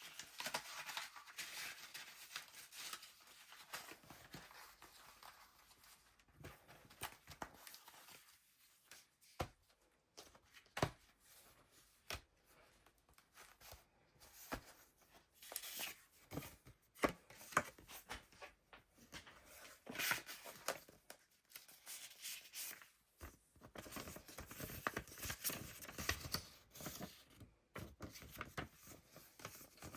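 Paper pages of a handmade junk journal being turned and handled, with soft irregular rustling and scattered light ticks and taps.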